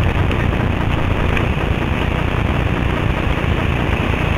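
Whitewater rapids rushing and churning, heard from a small boat in the middle of the rapid as a loud, steady roar of water.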